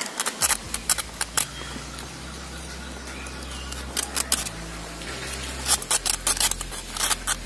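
Bare hacksaw blade sawing through a metal coil spring, worked by hand: quick back-and-forth scraping strokes in three bursts with short pauses between, near the start, around the middle and toward the end.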